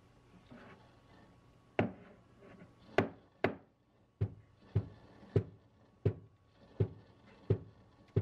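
Stainless steel milk pitcher of freshly steamed milk tapped down on a towel-covered counter, about ten knocks at a steady rhythm starting about two seconds in, to settle the foam and pop large bubbles before pouring latte art.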